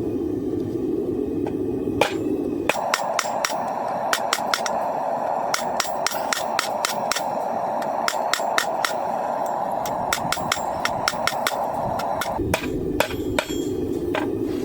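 Hand hammer striking hot coil-spring steel on an anvil while forging a knife blade, in quick runs of ringing blows between short pauses, over a steady rushing noise.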